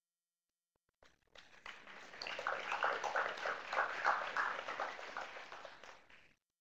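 Audience applauding: the clapping starts about a second in, swells, and fades out near the end.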